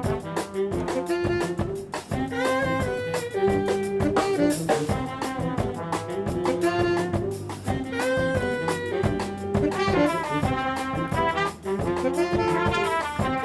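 Brass band playing a New Orleans-style swing-funk groove: trombones, trumpets and saxophones on a repeating riff over tuba and drums.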